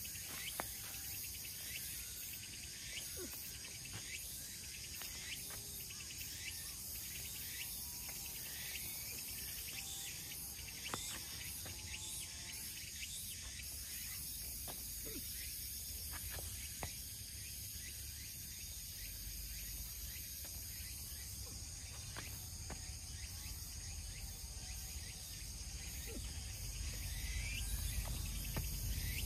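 Steady chorus of insects buzzing, with occasional short bird chirps and a low wind rumble on the microphone that gets stronger near the end.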